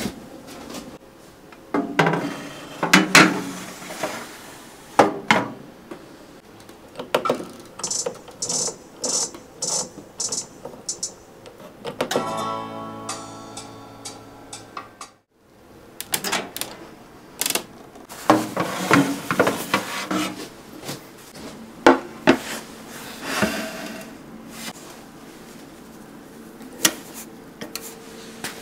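Kitchen handling sounds of metal bakeware and a BALMUDA countertop oven. There are knocks and clatter as the cake pan goes in and the baking tray comes out, a quick run of clicks as the oven's dial is turned, and a short electronic chime of a few seconds when the oven is set going.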